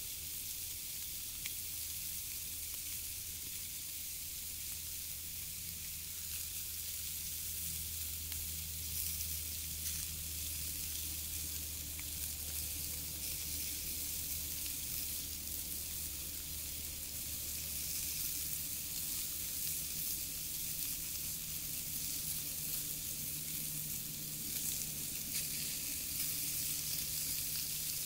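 Burger patties sizzling on a cast iron griddle over a wood fire: a steady frying hiss with a few faint pops.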